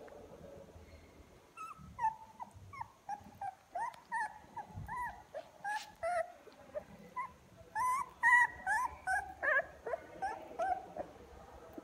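Very young puppies, eyes barely open, whimpering: a quick run of short, high, rising-and-falling squeaky cries that start about a second and a half in and crowd together, louder, in the second half.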